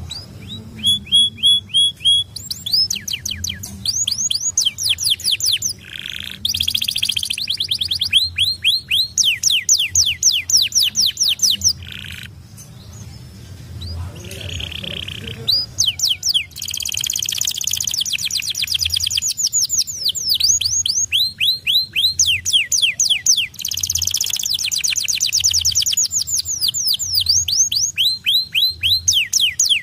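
White domestic canary singing: long rapid trills of quickly repeated falling notes, broken by a short pause about halfway through.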